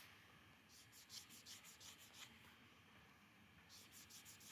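Faint scratchy rubbing in quick strokes, about eight a second, in two runs with a pause between them.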